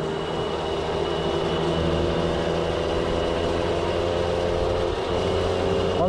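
Peugeot 103 moped's 50 cc two-stroke single running flat out at full throttle, a steady high-revving drone, with wind rush on the microphone.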